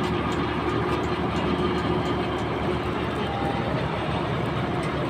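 Komatsu D65P bulldozer's diesel engine running steadily at a constant speed, with faint ticks over it.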